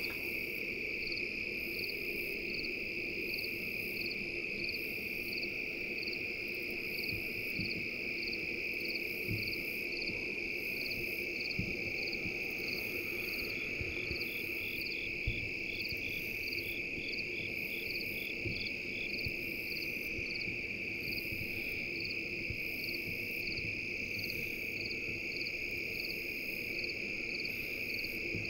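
Evening insect chorus of crickets and katydids: a steady high trill with short chirps repeating at a regular pace above it.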